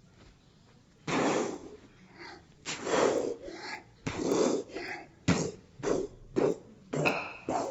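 A person's voice making a run of short, breathy, noisy bursts, about seven of them in quick succession after a quiet first second.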